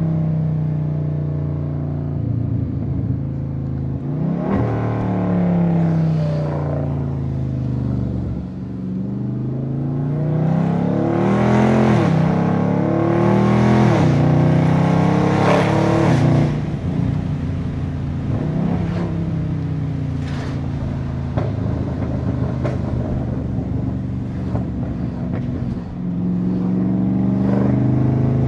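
Catless, tuned Dodge 392 Scat Pack's 6.4-litre HEMI V8 exhaust under hard acceleration. Its pitch climbs and drops at each upshift through several gears about a third of the way in. It then runs at lighter, varying throttle before pulling again near the end.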